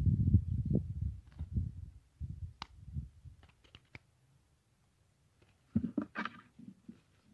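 Low rumbling handling noise close to the microphone, then a few small sharp clicks and a brief rustle about six seconds in, as hands bait a small fishing hook.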